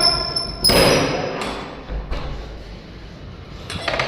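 A balcony door being opened: a short squeak at the start, then a thud about a second in and another knock near the end.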